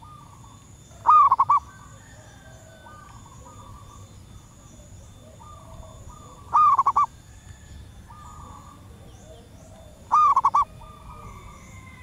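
Zebra dove giving three loud, short rolling cooing phrases, each about half a second of quick notes, a few seconds apart. Fainter cooing of other doves carries on between them.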